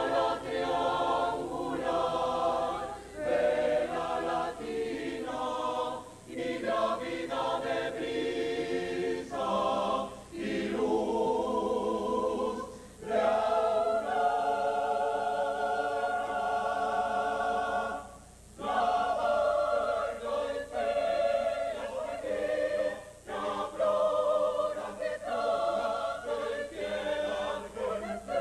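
Mixed choir of women's and men's voices singing in parts, in phrases broken by short pauses every three to five seconds.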